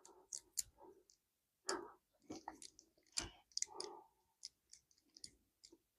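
Faint, scattered clicks and small metallic handling noises: a bicycle quick-release skewer having its end nut unscrewed and taken off.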